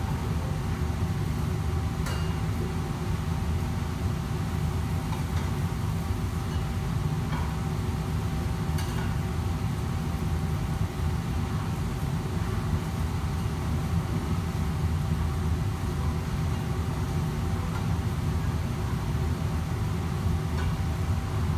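Steady low rumble of a commercial kitchen's exhaust hood and gas wok burners, with a steady hum and a few scattered clicks of cookware.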